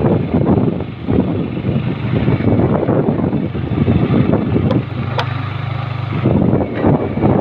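Motorcycle engine running as the bike rides along, mixed with wind rushing over the microphone. The engine note holds steady for about a second past the middle.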